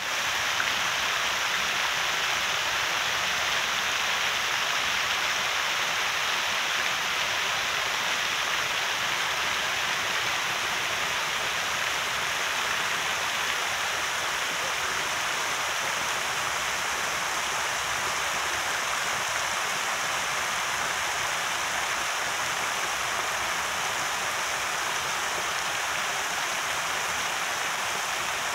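Ornamental fountain: dozens of thin arcing water jets splashing steadily into a shallow basin.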